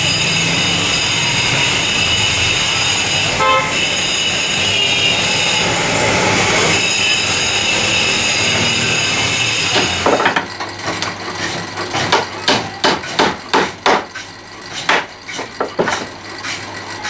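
Steady street traffic noise with a vehicle horn honking briefly, then, about ten seconds in, a hammer striking wood at a carpenter's bench, roughly two sharp blows a second at an uneven pace.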